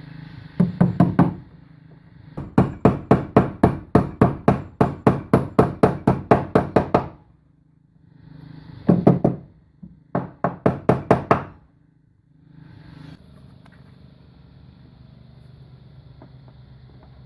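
Rapid knocking, about four sharp strikes a second, in four runs with short pauses between, the longest lasting about five seconds.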